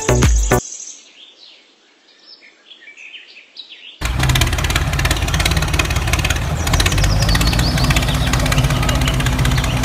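Background music cuts off, leaving faint bird chirps; about four seconds in, a tractor engine cuts in abruptly and runs steadily, with birds chirping over it.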